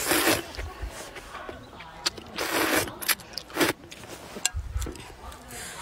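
Noodles slurped in three short noisy bursts, the longest about two and a half seconds in, with small chewing clicks between.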